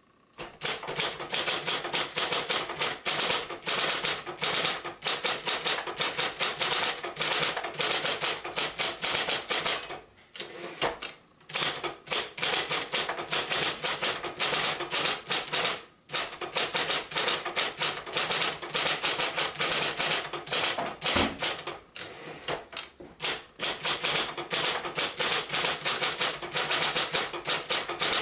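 A 1968 Royal Apollo 10 electric typewriter, built by Silver Seiko, being typed on at speed: a fast, continuous clatter of keystrokes, with short pauses about ten seconds in and again at sixteen. Its motor and drivetrain are nearly silent under the typing.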